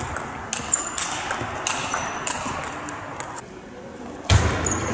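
Table tennis balls clicking off bats and the table during a rally, a quick irregular run of sharp ticks and short pings. A heavier thud comes about four seconds in.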